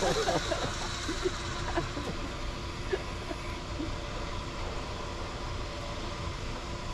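Vehicle engine idling steadily, with faint voices in the background.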